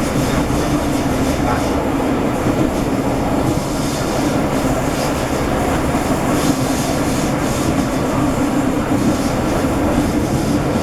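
Steady rumble and rattle of a moving passenger coach running on the rails, heard from inside the carriage.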